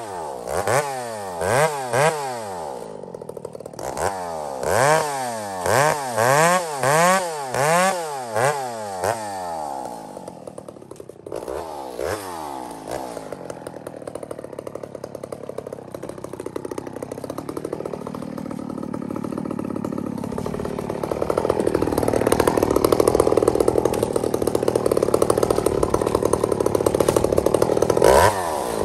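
Two-stroke chainsaw with a long bar bucking small logs. For the first ten seconds or so it revs up and falls back about once a second as it goes through one thin log after another. It then drops to a lower, uneven speed for several seconds, and from about two-thirds of the way in it runs steadily at high speed, cutting.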